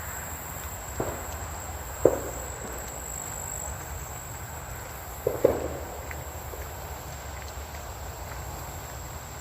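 Distant freeway traffic as a steady low rumble, with a thin, steady high insect drone over it. A few short scuffs of footsteps on the trail, the loudest about two seconds in and twice in quick succession past the midpoint.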